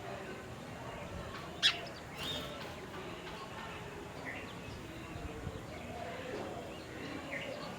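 Birds chirping: scattered short calls over a faint background, with one much louder, sharp chirp about a second and a half in.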